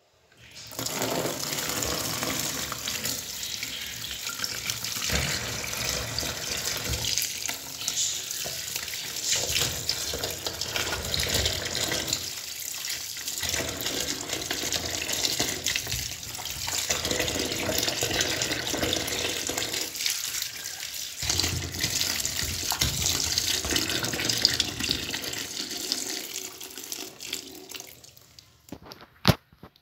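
Tap water running steadily into a plastic bowl of potatoes and aubergines in a steel sink, splashing as the vegetables are washed by hand. The water dies away near the end, followed by a single sharp click.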